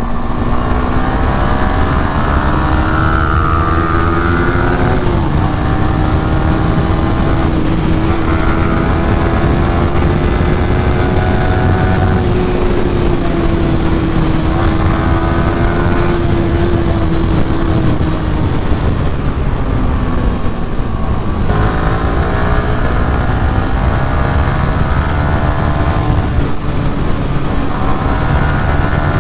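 Yamaha R15 v3's single-cylinder engine under way at speed. Its pitch climbs through the gears and drops back at each of several upshifts, easing off for a few seconds about two-thirds of the way through before pulling again. Wind rushes underneath throughout.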